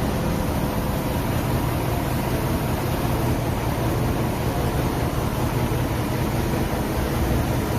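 Heavy diesel machinery engine running steadily at a low, even pitch with a constant hiss over it.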